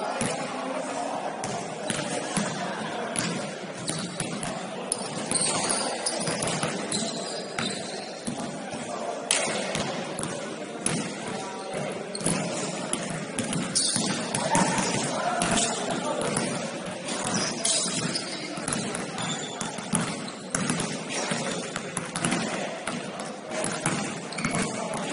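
Basketball game in an indoor gym: the ball bouncing again and again, with knocks and thuds, over a steady background of indistinct voices, all echoing in the large hall.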